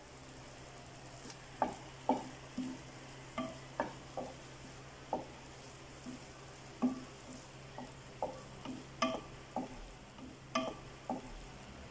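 Wooden spatula stirring sauce-coated fried tofu pieces in a non-stick pan, with irregular light knocks and scrapes about once or twice a second. A faint steady low hum runs underneath.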